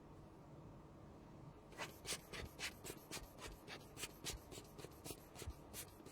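A quick run of short, dry scratching strokes from a small hand tool on a hard surface, about four or five a second. It starts nearly two seconds in and stops just before the end.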